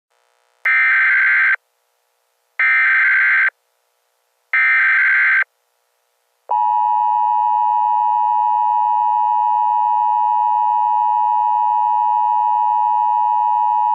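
Emergency Alert System alert opening: three short, evenly spaced bursts of the SAME digital header, about a second each, then the steady two-tone EAS attention signal held for about eight seconds.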